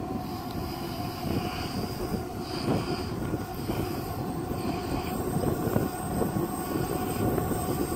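Diesel locomotives of an approaching freight train running, a steady low drone with a faint steady tone.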